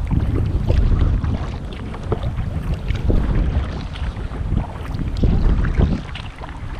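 Kayak paddling: a double-bladed paddle dipping on alternate sides with small splashes and drips. A low wind rumble on the microphone swells and fades throughout.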